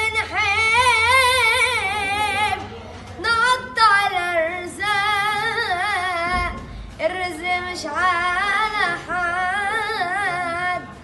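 A male singer's voice singing live in long, high, ornamented phrases with heavy vibrato, holding and bending drawn-out syllables, with short breath pauses about a third and two thirds of the way through.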